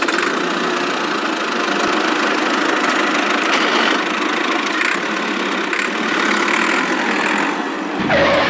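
A machine's engine or motor running steadily, a constant mechanical whirr with a low hum.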